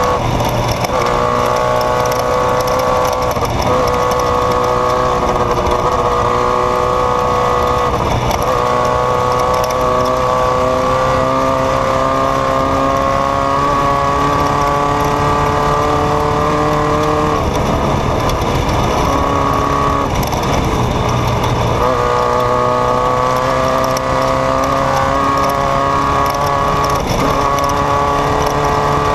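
Engine of an off-road desert race vehicle running hard at speed, a loud steady drone whose pitch drifts slowly up and down. It is broken briefly a few times, and for several seconds past the middle, by a rough noisy rumble.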